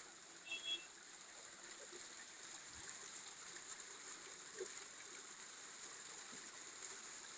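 Steady trickle and splash of water from a small decorative waterfall, with a brief high-pitched chirp about half a second in.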